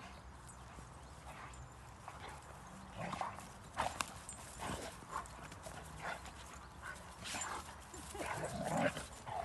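Two Rhodesian Ridgebacks play-fighting: short dog vocalisations and scuffling come in scattered bursts, getting busier and loudest near the end.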